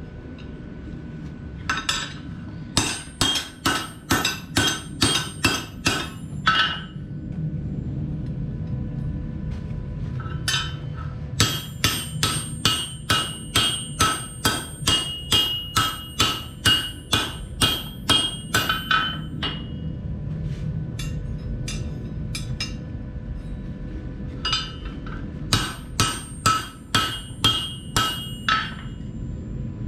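Blacksmith's hammer striking steel bar on an anvil in three runs of sharp, ringing blows, roughly two a second, with lighter taps between the runs. A steady low hum runs underneath.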